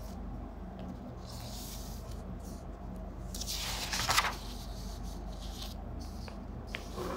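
Sheets of paper being turned over and handled: a soft rustle, then a louder rustle about four seconds in and a couple of light ticks, over a steady low hum.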